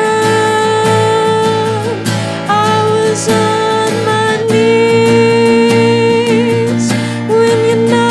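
Music: a song with acoustic guitar and long held notes that waver at their ends.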